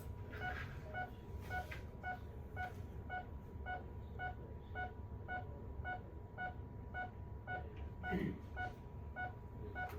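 Hospital patient monitor beeping evenly and quickly, about two short beeps a second, over a faint steady tone. A voice is heard briefly near the end.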